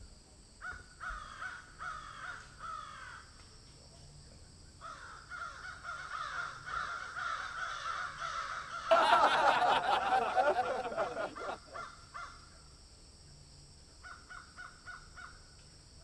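Badger calling: runs of harsh, repeated calls, each falling in pitch, in three bouts, loudest and harshest about nine seconds in.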